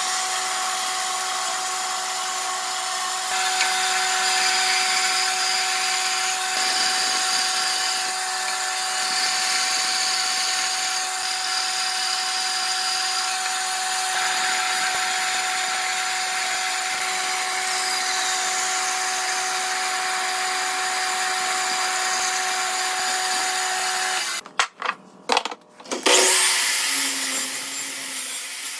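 A power tool running steadily on wood with a constant whine, then stopping and restarting in short spurts near the end.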